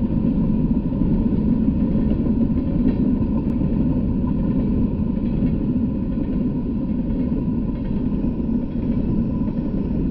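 Freight train of open-top hopper cars rolling past, a steady low rumble of wheels on the rails.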